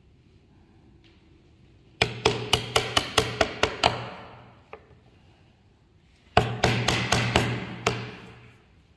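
A claw hammer strikes the end of a wooden-handled chisel, driving it into a wood block to chop out a groove. There are two quick runs of about ten strikes each, roughly five a second, the first starting about two seconds in and the second past six seconds.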